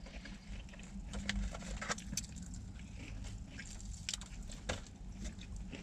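Close-up eating sounds: chewing, mouth clicks and light crinkles from handling fried chicken tenders and fries in foam takeout boxes, as a run of small scattered clicks. Underneath is a low steady hum inside the car cabin.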